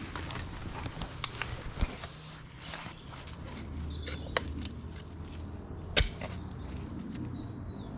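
Knocks and clicks of hands handling a muddy glass bottle and digging in mud, the loudest about six seconds in, over a low rumble. A short bird chirp comes about four seconds in.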